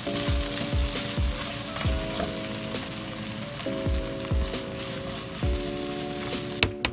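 Sauce-coated sausage and vegetable stir-fry sizzling in a wok while it is stirred with a silicone spatula. The sizzling cuts off near the end.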